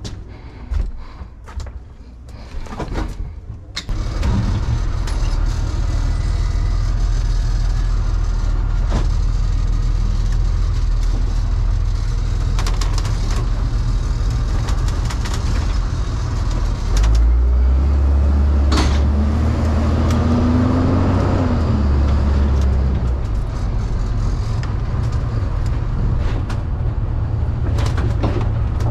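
Delivery step van heard from inside its cab: a few clicks and knocks, then about four seconds in the engine starts and runs with a steady low rumble as the van drives off, getting louder around the middle, with occasional knocks and rattles.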